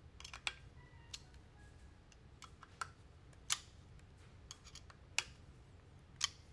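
A dozen or so faint, irregular small metallic clicks and ticks from a hand driver turning the barrel mounting screws on an FX Crown air rifle as they are tightened down evenly.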